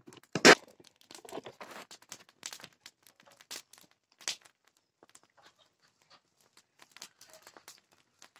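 Red-hot knife blade cut from a steel plough disc lowered into a tin can of preheated oil: a sharp metallic clank about half a second in, then the oil crackling and spitting irregularly around the steel as it quenches to harden.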